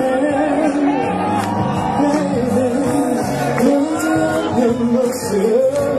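A male singer singing a melody live into a microphone, with instrumental accompaniment, amplified for an audience.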